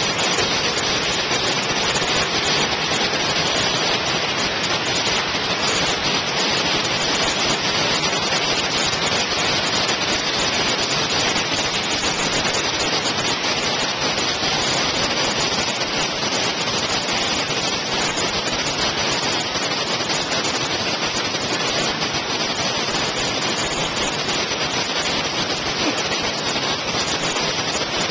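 Waterfall cascading over rock: a steady, unbroken rush of falling and churning water.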